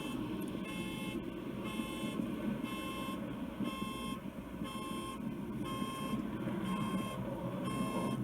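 A Tesla's car alarm sounding, set off by a low jet flyby: a run of high beeps repeating about once a second, over a steady low rumble.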